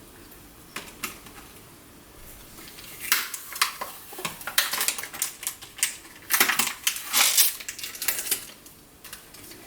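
Hard plastic boxes and lids being handled: a couple of light clicks, then from about three seconds in a run of clattering knocks, clicks and scrapes that stops shortly before the end.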